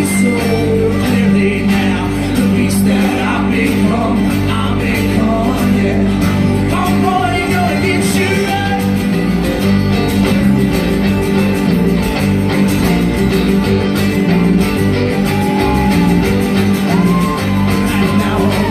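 A live folk-rock band plays a song with guitars and voices singing over a steady, sustained accompaniment, without clear words.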